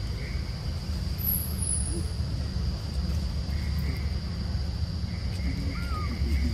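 Forest ambience: a steady high insect drone over a low rumble, with a short high falling chirp about a second in and a faint squeak near the end.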